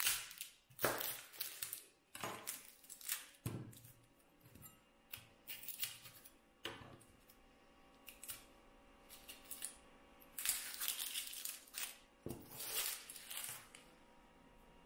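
Half an onion being prepared by hand on a kitchen worktop: irregular crisp crackling and rustling strokes with light knocks, and a quieter stretch midway.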